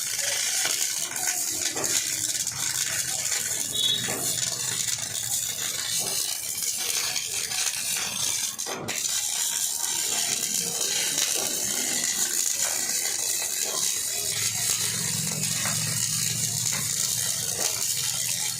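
CO2 MIG welding arc crackling and hissing steadily, with a short break about nine seconds in.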